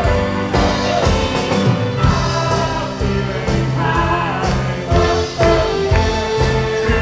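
Live band playing a song with a steady drum beat, bass and sung vocals, with many voices singing along.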